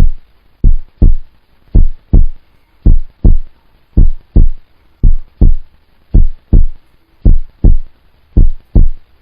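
Heartbeat sound effect: deep paired thumps (lub-dub) repeating at a steady pace, about one beat a second.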